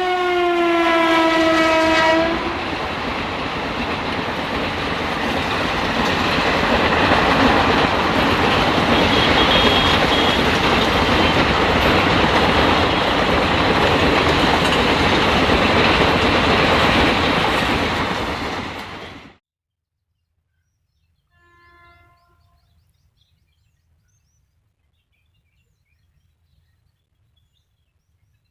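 A train horn sounds one long note that drops slightly in pitch, then a train runs past with its wheels on the rails for about seventeen seconds until the sound cuts off suddenly. A short, faint horn follows a few seconds later.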